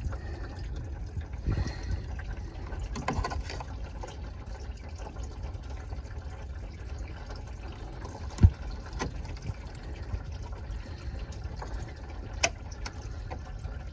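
Coolant draining from the 2008 Ford Focus's open radiator drain into a catch pan, a steady trickle, with a few sharp clicks of a small screwdriver prying at the metal hose clip, the loudest about eight and a half seconds in.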